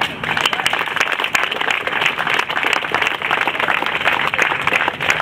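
Crowd applauding: many hands clapping, starting at once and keeping up steadily.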